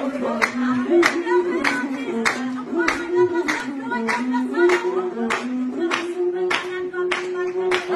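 A song sung with steady hand-clapping, about three claps every two seconds, under a melody of held notes that step up and down.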